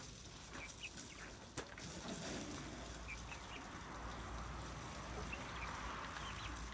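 Young broiler-type chickens giving short, soft peeping calls now and then while feeding, over a low background hiss.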